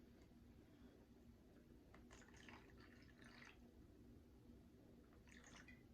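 Near silence, with faint small sounds of liquid moving and dripping twice, about two seconds in and again near the end.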